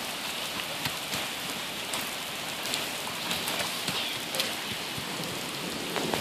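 Heavy rain falling on wet pavement: a steady, even hiss with scattered sharp ticks of drops.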